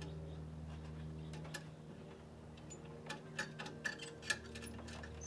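Small sharp clicks and taps of plastic and metal parts being handled at the motorcycle's fog light while the bulb is taken out. The clicks are sparse at first and come thick and irregular in the second half, over a steady low hum.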